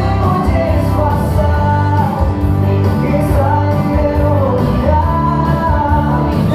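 Sertanejo song playing loudly, a sung vocal melody over a steady bass line.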